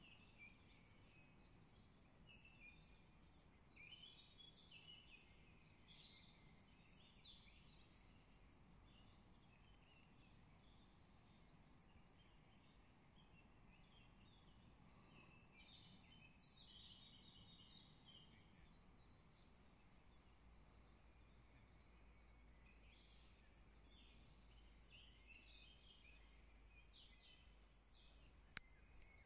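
Faint birdsong from several small birds, with short chirps and trills overlapping throughout. A single sharp click near the end.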